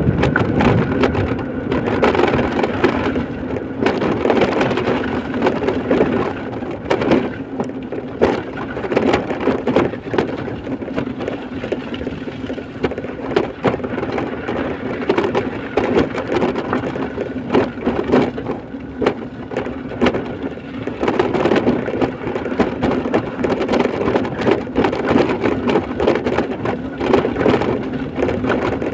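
A vehicle driving over a rough road under construction: a steady engine hum under constant rattling, knocking and crunching.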